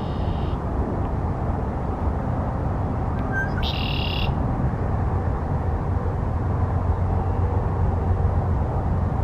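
Red-winged blackbird calling twice: a harsh, buzzy call just at the start and a louder one about four seconds in. A steady low rumble runs underneath.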